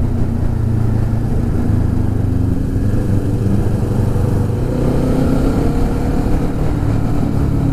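Motorcycle engine running at a steady cruise, its pitch rising slightly about halfway through, with wind rushing over the helmet microphone.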